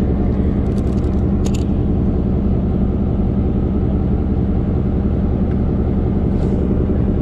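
Fishing boat's engine running steadily as a low drone, with a couple of brief clicks about a second and a half in.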